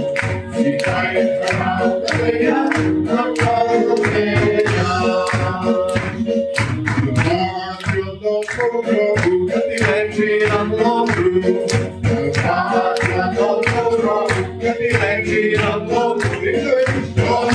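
Several voices singing a song together to music with a steady beat, with clapping.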